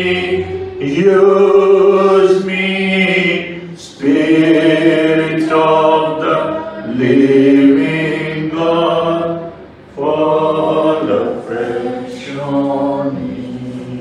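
A few voices singing a slow hymn in long held notes, in phrases of several seconds that fade toward the end.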